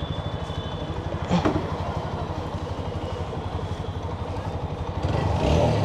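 Motorcycle engine idling with an even, steady beat, a single knock about a second and a half in, and the engine sound growing louder near the end.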